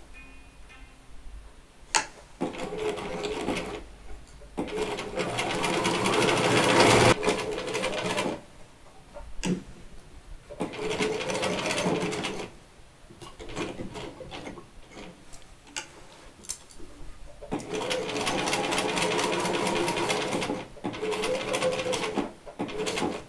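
Electric sewing machine stitching a seam in five short runs, stopping and starting, with a few sharp clicks in the pauses between runs. The second run speeds up and gets louder before it stops.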